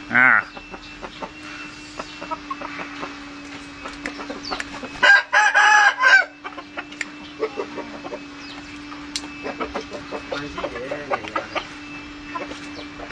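A rooster crows once about five seconds in: a short crow of a little over a second, the loudest sound. Softer clucks and clicks from the fowl are heard around it, with a short call right at the start.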